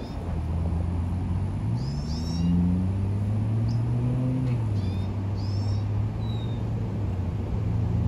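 A motor engine running with a steady low hum that rises in pitch for a couple of seconds and then settles back, with short high bird chirps several times over it.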